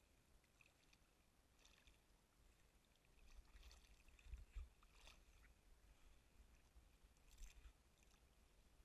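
Near silence: faint lapping of river water close to the microphone, with a few soft splashes scattered through.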